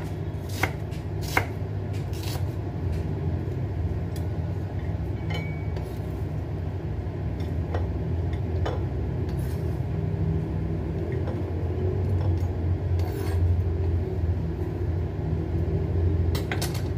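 Chef's knife cutting vegetables on a wooden cutting board: a few knife taps through red onion in the first two seconds, then sparse taps, rubbing and scraping as the knife works into a green bell pepper. A steady low hum runs underneath.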